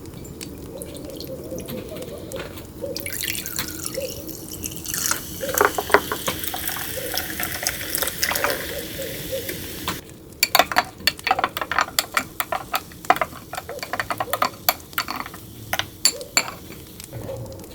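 Whisky and tonic water poured into a glass for a highball: a steady pour for several seconds, then a long run of crisp crackles and clicks as the carbonated tonic fizzes in the glass.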